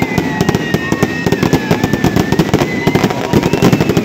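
Fireworks going off: a dense, rapid run of crackles and pops from a ground-launched firework shooting streams of sparks upward. A long, high whistle that slowly drops in pitch runs through it.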